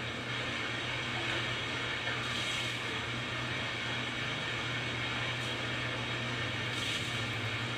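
Steady rush of running water in a public bath over a low hum, with brief splashes from a plastic wash basin about two seconds in and again near the end.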